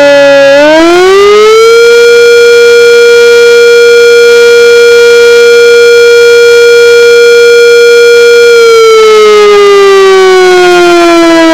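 Sentry 3V8-H fire siren sounding its full attack wail. The pitch rises from a low point about half a second in, holds a steady high tone for about seven seconds, then begins falling near the end. It is very loud and distorted from recorder overload at close range.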